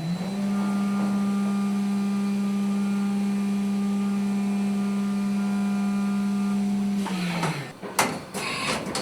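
CNC milling machine motor whine: a steady pitched hum that has just risen, holds one pitch for about seven seconds, then winds down. Sharp clattering knocks follow near the end.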